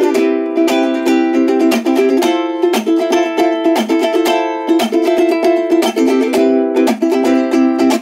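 Handmade full-bodied G-Labo 'Wagamama' ukulele, with a solid acacia top and solid mahogany sides and back, strummed solo. The chords are played in a quick, even strumming rhythm and change about every second.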